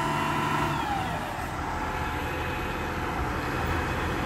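Bucket truck's engine running at raised speed, its pitch dropping about a second in, then running steadily at a lower speed.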